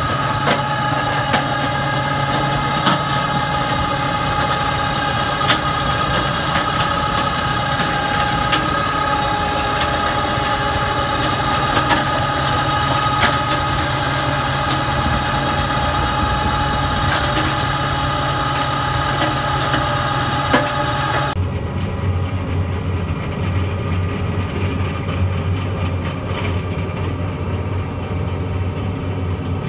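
Valentini Attila 2000 N stone crusher, driven by a tractor, working stony ground: a steady mechanical drone with whining tones and occasional sharp knocks. About 21 seconds in, the sound changes to a deeper, muffled engine drone heard from inside the tractor cab.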